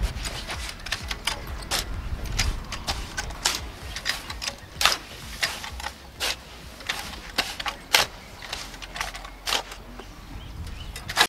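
Shovel scraping and scooping damp sand-and-cement mix and tipping it into a steel block mould: a string of irregular sharp scrapes and clicks, a few much louder than the rest.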